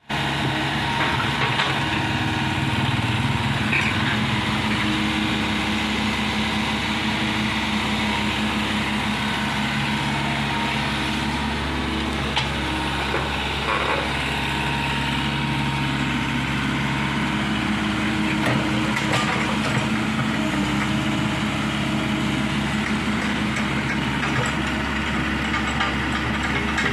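Komatsu PC75 excavator's diesel engine running steadily, with a few short knocks along the way.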